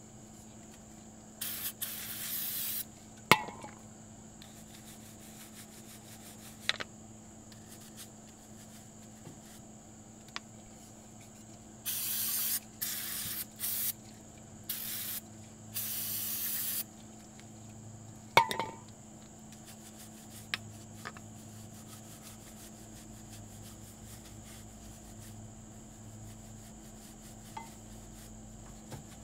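Aerosol can spraying in short hisses on a brake caliper: a couple near the start and a run of about five in the middle, each group followed by a sharp clack.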